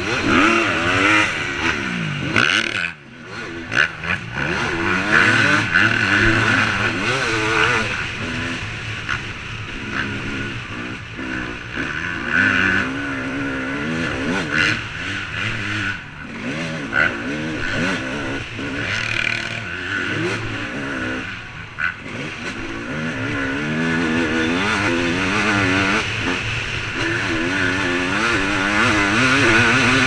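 Dirt bike engine under race riding, its pitch rising and falling over and over as the throttle is opened and closed through the gears, with a short throttle-off dip about three seconds in.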